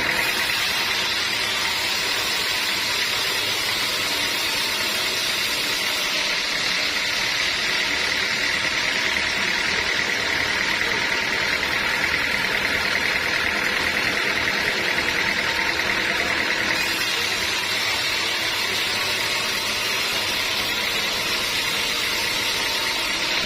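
Band sawmill running steadily, a constant mechanical whir with a strong high hiss. The hiss thins a little from about six seconds in and comes back fuller near seventeen seconds.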